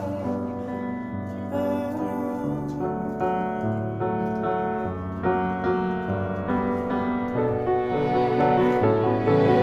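Background music: soft piano chords moving from note to note, with no tool sounds heard.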